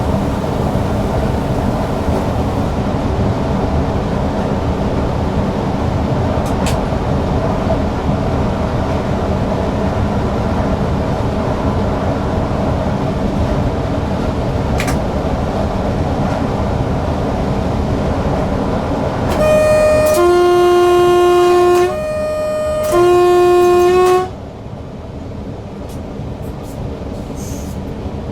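Newag Impuls EN63 electric multiple unit running steadily along the track, heard from the driver's cab. About two-thirds of the way in, its horn sounds twice, each blast a short tone dropping to a lower, louder one. After the horn the running noise carries on more quietly.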